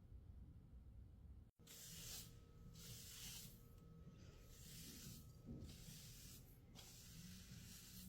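Quiet cleaning sounds: a series of soft hissing strokes, each under a second long, starting after a brief cut about a second and a half in.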